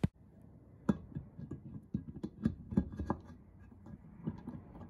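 Irregular light metallic clicks and knocks from a motorcycle transmission's gear shafts being fitted by hand into a cast aluminium crankcase half. The gears knock against each other and against the case, starting about a second in.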